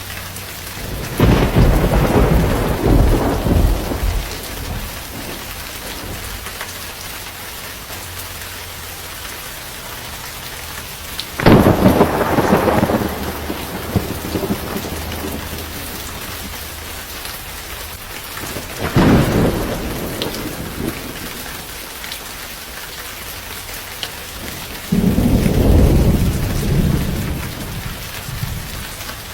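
Steady rain with four rolls of thunder: a sharp crack about a third of the way in is the loudest, and the others rumble and fade over two to three seconds each.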